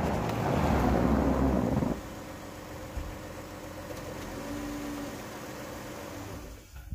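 Dodge Grand Caravan minivan's engine idling. For about the first two seconds wind rushes over the microphone, then drops away, leaving a steady, quieter hum.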